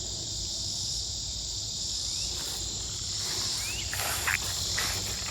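Steady high-pitched chorus of crickets, with brushing, rustling footsteps through tall weeds setting in about three seconds in.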